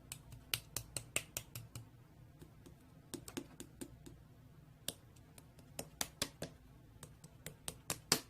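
Irregular quick clicks and taps, several a second in short clusters, like keys or buttons being pressed.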